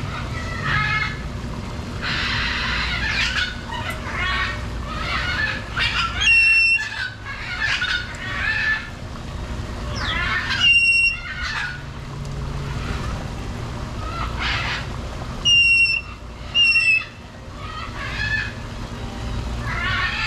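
Parrots squawking and calling over and over in an aviary. Four loud, shrill whistled calls stand out, at about 6, 11, 15 and 17 seconds in, over a steady low hum.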